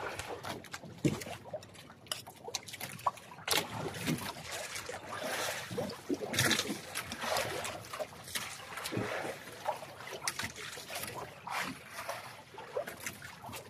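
Sea water sloshing and splashing against the hull of a small outrigger boat, with scattered clicks and scrapes of spoons on plates.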